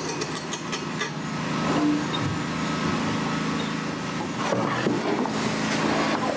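Woodshop machinery running with a steady hum, while wood is handled with scattered knocks and clicks between table-saw cuts of a tenon on a tenoning jig.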